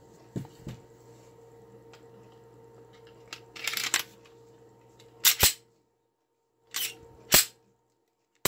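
Glock 22 pistol being reassembled by hand: soft knocks of parts being handled and a brief scrape of the slide going onto the frame. Then two pairs of sharp clacks as the slide is worked, and one more clack at the end.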